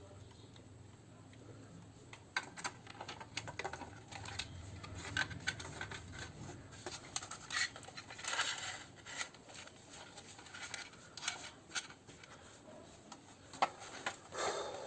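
Irregular clicks, taps and scraping of hard plastic and metal parts being handled as a speaker is fitted back into an old tape recorder's cabinet.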